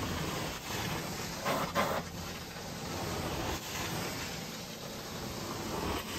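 Carpet cleaning wand of a truck-mounted hot water extraction machine sucking air and water as it is drawn across the carpet: a steady rushing suction noise, with two brief louder surges about one and a half seconds in.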